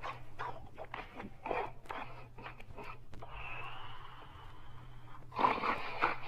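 Sleeping dog breathing noisily: a few short snuffles, then a long wheezy breath with a faint whistle in it, and a louder snore near the end.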